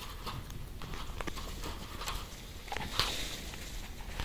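Vervet monkeys feeding at a plastic bowl among food scraps: scattered small knocks and rustles, with a brief louder rustle about three seconds in.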